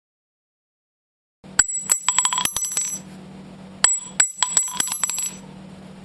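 Spent cartridge cases dropping and clinking, each a quick run of sharp metallic clinks with a bright ring that dies away. Two drops, the first about one and a half seconds in and the second about two seconds later, with a low steady hum between them.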